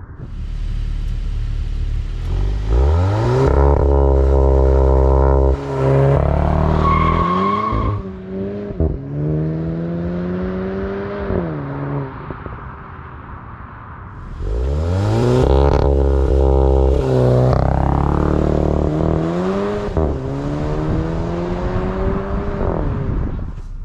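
2022 VW GTI (MK8) with its stock exhaust, its turbocharged four-cylinder engine accelerating hard twice, each run rising in pitch through several quick gear shifts of the dual-clutch gearbox.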